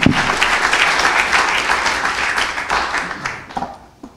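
Audience applauding, the clapping dying away about three and a half seconds in, with a single low thump right at the start.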